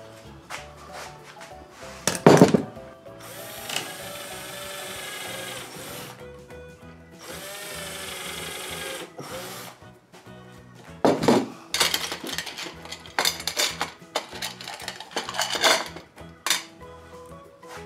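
An air-powered stapler fires once, about two seconds in, with a sharp crack. A cordless drill then drives screws into the wood in two runs of a few seconds each, its whine rising and falling. Near the end come a series of knocks and metallic clatter.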